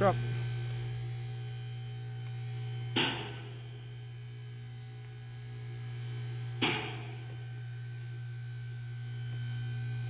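Steady low electrical hum, with two short sharp clicks, one about three seconds in and one near seven seconds.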